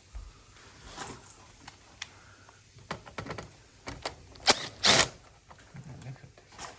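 Irregular clicks and knocks of air-conditioner parts being handled and unclipped during disassembly, with two louder snaps about four and a half and five seconds in.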